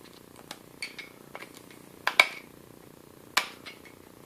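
A screwdriver working a steel circlip (external snap ring) down a shaft toward its groove: a scattered series of short, sharp metal clicks, the loudest just after two seconds in and again about three and a half seconds in.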